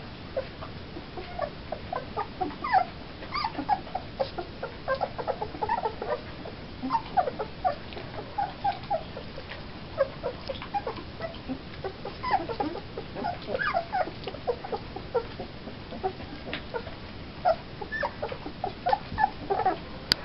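A litter of young puppies whimpering, with many short, high squeaks and cries, often several close together.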